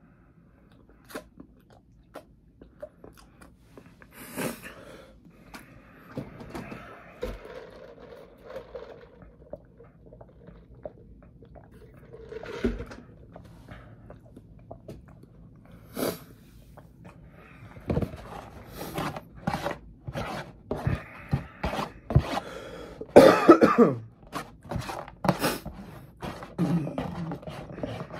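Brown paper takeout bag rustling and crinkling as it is handled, in irregular bursts that grow busier in the second half. A cough comes about two-thirds of the way through and is the loudest sound.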